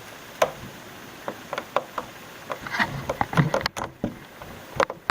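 Irregular clicks, taps and knocks of wires, connectors and plastic parts being handled inside an oxygen concentrator's cabinet during disassembly, over a steady faint hiss.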